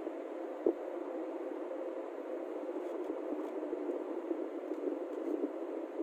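Steady road and engine noise heard inside a moving car's cabin, with a single sharp click under a second in.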